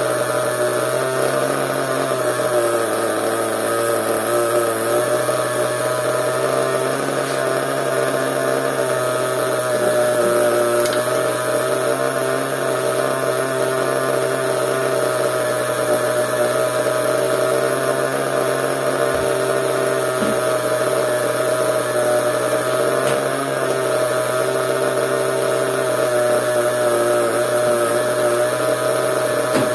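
Small nitro (glow-fuel) engine of an RC monster truck running steadily at a high idle, its buzzing pitch holding nearly constant.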